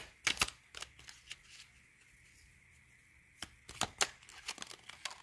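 A deck of oracle cards being handled and shuffled to draw a card: short papery flicks and snaps, a few at the start and another run about three and a half seconds in.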